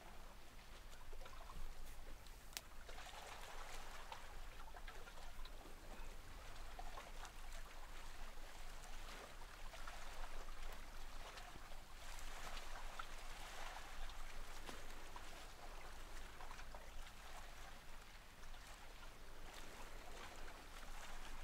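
Faint, steady sound of running water, a trickling stream with no pauses or changes.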